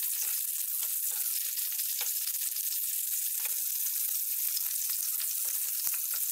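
Halved parwal (pointed gourd) sizzling steadily in hot mustard oil in a nonstick frying pan, fried to a golden brown and done. A few faint taps and scrapes of a wooden spatula come through as the pieces are moved to be lifted out.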